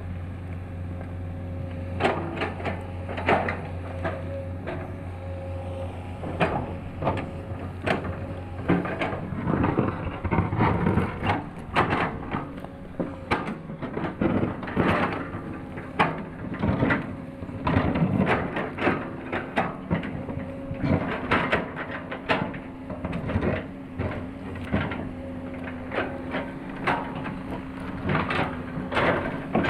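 Excavator's diesel engine running steadily, with irregular sharp knocks and clanks starting about two seconds in as the machine works.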